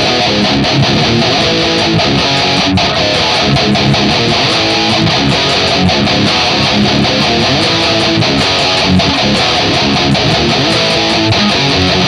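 Ibanez RGIT20FE electric guitar played through heavy distortion on its EMG 81 active bridge pickup: dense, continuous distorted riffing and chords.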